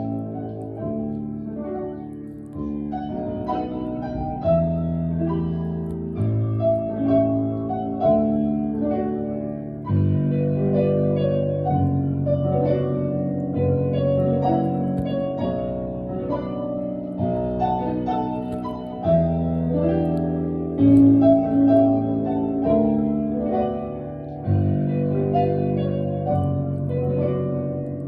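Piano music: a passage of chords moving over low bass notes.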